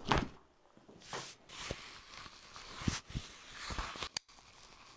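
Patient breathing out hard at the start, then rustling and shifting of body and clothing on a chiropractic adjusting table with a few soft thumps as the adjustment is set up. One sharp click comes about four seconds in.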